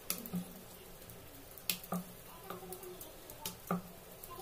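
Wooden rolling pin rolling out puri dough on a rolling board, with a handful of sharp knocks and clicks as the pin and board tap against each other, over a faint steady low hum.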